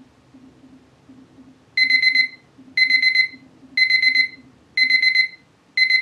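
Hoinya digital kitchen timer's alarm going off as its countdown reaches zero. From about two seconds in it sounds groups of rapid high-pitched beeps, each group about half a second long, repeating about once a second.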